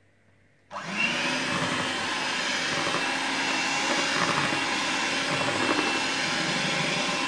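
Electric hand mixer switched on about a second in, its motor rising in pitch as it spins up, then running steadily with its beaters whisking egg yolks and sugar into mascarpone cream in a glass bowl.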